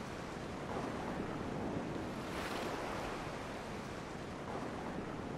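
Sea water washing along the hull of a sailing ship under way, with wind. The wash rises and falls in slow surges, loudest about two and a half seconds in.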